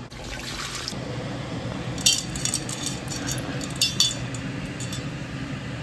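Pot and kitchen utensils clinking in two short clusters of knocks, about two seconds in and again near four seconds, over a steady low hum.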